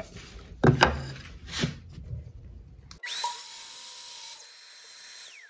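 A few sharp knocks as the wood is set against the fence. About three seconds in, a Bosch Glide sliding miter saw makes a crosscut, played back at eight times speed and turned down. Its motor whine rises quickly as the blade spins up, holds steady over a hiss while it cuts, and falls away near the end.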